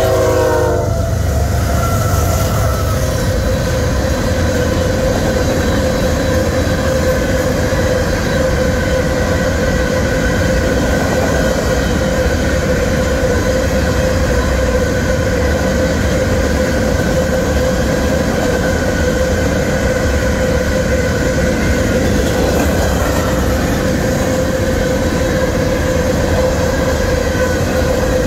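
Union Pacific freight train passing fast over a grade crossing: the locomotive's horn cuts off about a second in, then the cars roll by with a loud, steady rumble. A steady crossing-bell tone rings throughout.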